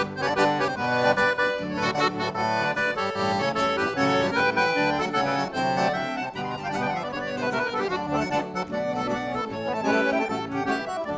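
Accordion playing the instrumental break of a gaúcho song over a steady rhythmic accompaniment.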